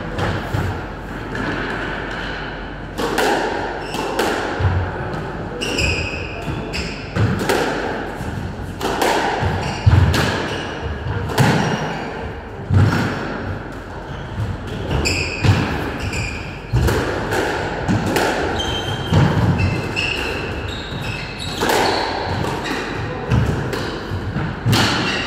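A squash rally: the ball is struck by rackets and thuds off the court walls about once every second or so. Short high squeaks come now and then from shoes on the wooden floor.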